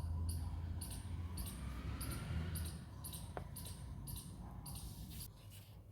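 Quiet handling noise as potted succulents are unwrapped from their packaging: soft rustling with low knocks and a single click about three and a half seconds in.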